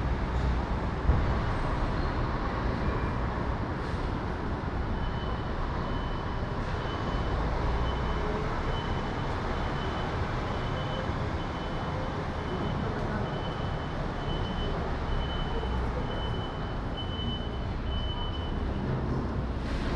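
City street ambience: a steady rumble of traffic and a hubbub. From about five seconds in until near the end, a short high electronic beep repeats about once a second.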